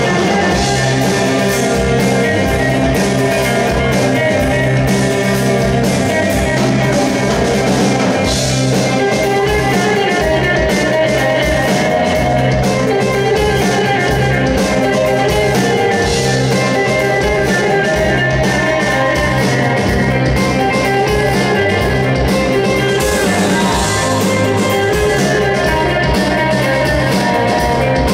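Rock band playing live with electric guitar, bass guitar and drum kit, loud and steady throughout.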